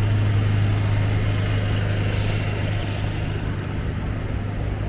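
Steady low mechanical hum, like an idling engine, over a haze of city street noise.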